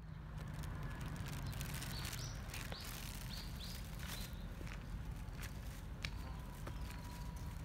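Footsteps of someone walking outdoors over a steady low rumble. A small bird calls a quick series of about six short falling chirps between about two and four seconds in.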